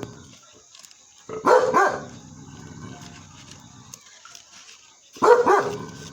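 Dog barking: two quick double barks, the second pair about four seconds after the first.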